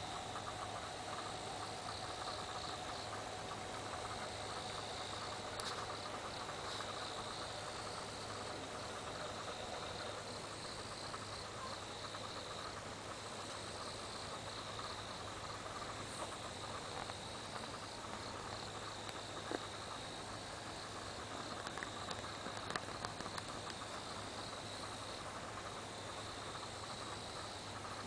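Crickets singing at night, a steady run of high, pulsing trills, over a faint low hum, with a few light clicks near the end.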